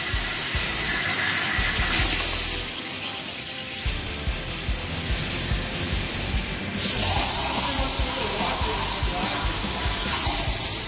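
Background music with a steady beat over the hiss of a CNC plasma torch cutting steel tube. The hiss breaks off for a moment about six and a half seconds in, then resumes.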